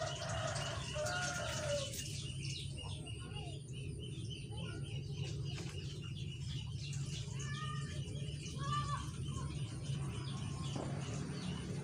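Small birds chirping and calling repeatedly over a steady low hum, with a couple of longer arched calls near the end.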